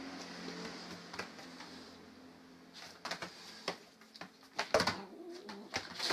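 Low, steady animal growl from the cat-and-dog standoff, then a few short hisses and sharp knocks in the second half.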